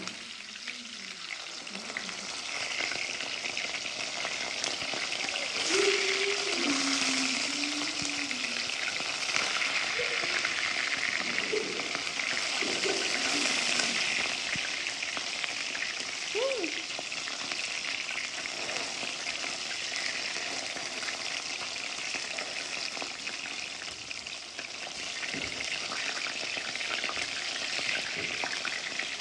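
Food frying in a pan, a steady sizzle throughout.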